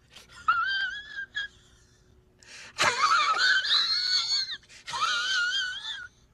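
High-pitched wavering wail-like tones in four phrases, a comic sound effect laid over the edit; the loudest phrase starts sharply about three seconds in and the sound stops just after six seconds.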